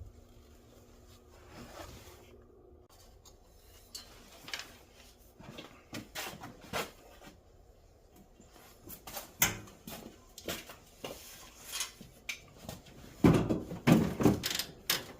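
Scattered clicks, knocks and clatter of tools and parts being handled during engine work, growing into a louder run of knocks near the end.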